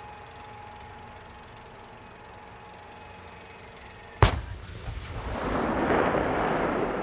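An M1A1 Abrams tank's 120 mm main gun fires once, a single sharp blast about four seconds in, followed by a long rolling rumble that swells and then fades. Before the shot there is only a faint steady whine.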